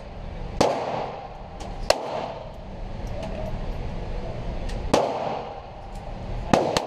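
Ruger .22 pistol shots in an indoor range: about five sharp cracks with a reverberant tail, irregularly spaced, two in quick succession near the end. Fainter cracks sound between them.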